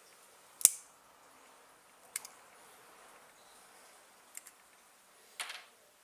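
Clicks and knocks of small parts being handled on an RC truck's hub and suspension: one loud sharp click about half a second in, quieter clicks around two and four seconds, and a short rattle near the end.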